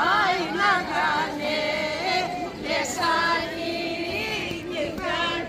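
A group of women singing a traditional Greek Easter dance song unaccompanied, with long held notes.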